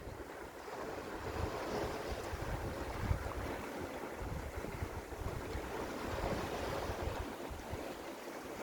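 Sea waves washing against coastal rocks, a steady surf hiss with low wind rumble on the microphone.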